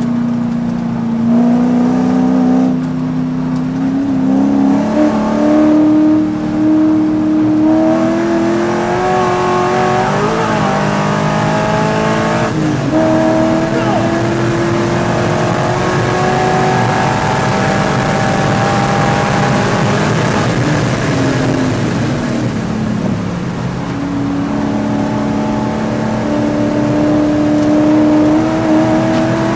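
Race car engine heard from inside the cabin, pulling hard and rising in pitch, with an upshift about twelve seconds in. It eases off and drops in pitch around twenty to twenty-three seconds in as the car slows, then accelerates again, the pitch climbing to the end.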